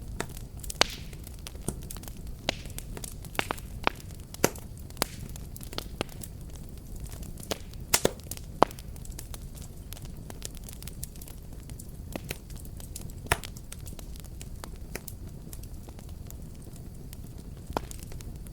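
A wood fire crackling: irregular sharp pops and snaps over a steady low rumble of burning, with a few louder snaps a little before halfway.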